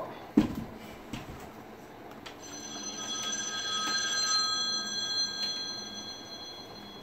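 Phone ringing: a ringtone of several steady high tones held together, coming in about two seconds in, swelling and then easing. It follows a sharp knock of handling about half a second in.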